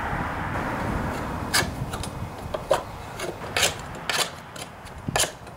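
Compacted grass being scraped off the underside of a steel push-mower deck: a continuous rough scraping that breaks into separate sharp strokes after about two seconds.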